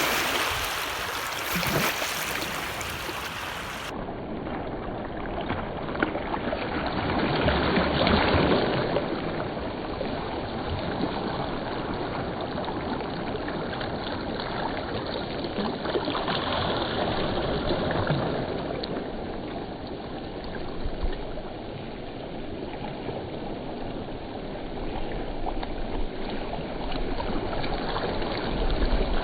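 Warm wind blowing steadily in gusts, a rushing noise with low rumbling swells where it buffets the microphone.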